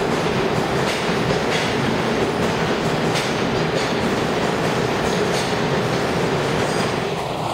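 New York City subway train moving through the station: a steady rumble of steel wheels on the rails, with repeated clacks as the wheels cross rail joints.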